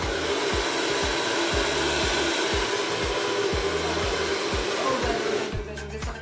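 Handheld hair dryer blowing a steady rush of air, dying away near the end. Background music with a steady bass beat runs underneath.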